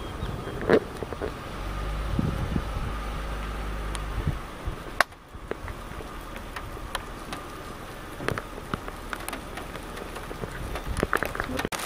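Low idling hum of a stopped car, which cuts off about four to five seconds in, with scattered sharp ticks of hail hitting the car that come faster near the end.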